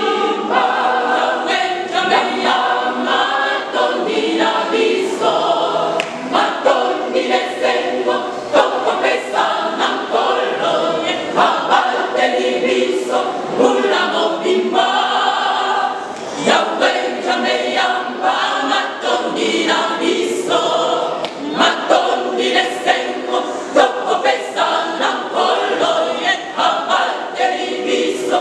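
Church choir singing, many voices together.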